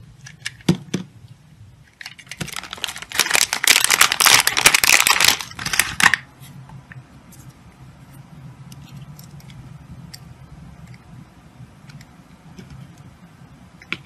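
Snap-off utility knife blade cutting through a bar of soap: a few crisp clicks, then about four seconds of dense crackling and crunching that stops abruptly. Afterwards only faint scrapes and ticks as the blade touches the soap lightly.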